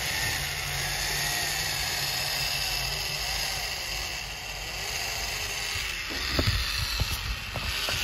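Electric drive motor and gearbox of a homemade remote-control model tractor whirring as it pulls a small cultivator through sand, the pitch wavering under load. A few sharp clicks and knocks come near the end, when the cultivator snags.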